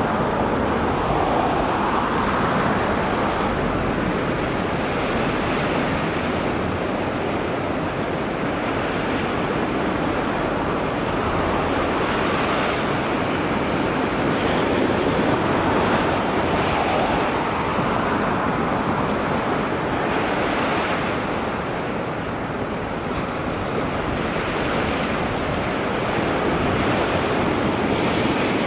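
Surf washing up a beach, a steady rush of waves, with wind rumbling on the microphone.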